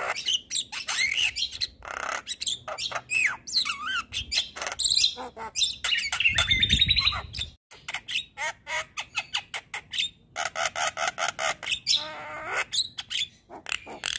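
Javan myna singing a long, varied song of rapid clicks, chatter and whistled notes. A little past halfway it gives a harsh buzzy stretch, breaks off briefly, then goes on with fast clicking and a warbling run near the end.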